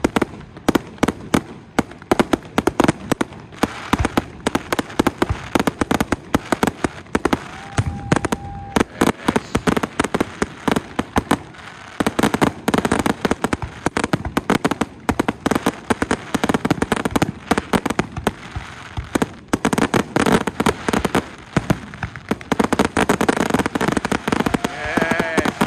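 Aerial firework display: a continuous barrage of sharp bangs from bursting shells, mixed with dense crackling from crackling-star effects, many reports a second.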